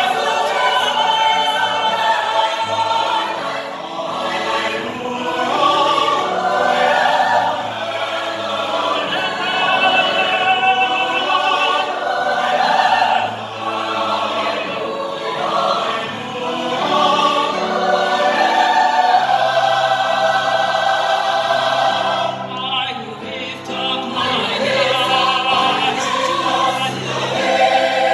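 Mixed choir singing sustained chords with a male soloist's voice singing over it.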